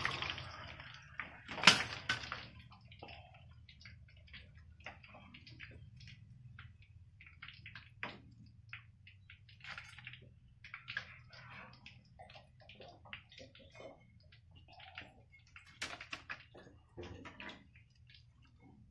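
A steel slotted spoon knocks against an iron kadhai about two seconds in, followed by faint scattered clicks and crackles over a low hum.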